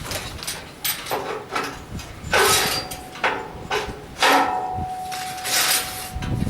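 Diamond saw blade of a copying saw cutting hard red porphyry in irregular bursts as it bites into the stone, each burst starting suddenly with a ringing tone, one of which hangs on for about two seconds after the middle.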